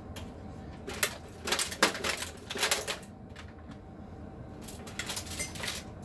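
Clattering knocks and rattles of a metal desktop PC case being lifted by a 3D-printed handle bolted to its top. They come in two bunches, about a second in and again near the end.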